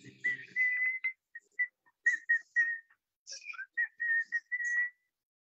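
A person whistling a run of short and held notes near one pitch, with small steps up and down.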